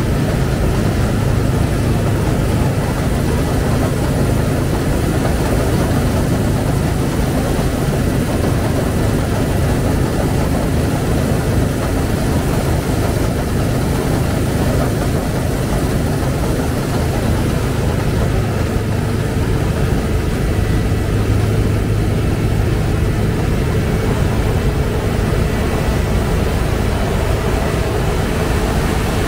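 Combine harvester working a wheat field: a loud, steady drone of its diesel engine and machinery, very noisy and heavy in the low end.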